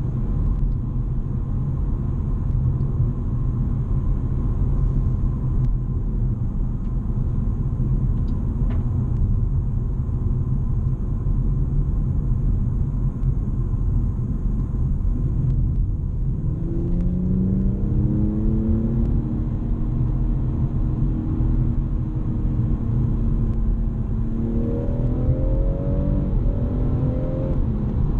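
BMW M240i's 3.0-litre turbocharged straight-six heard from inside the cabin: a steady road and tyre rumble while cruising, then about two-thirds of the way through the engine note rises as the car accelerates, holds, and climbs again in short steps near the end.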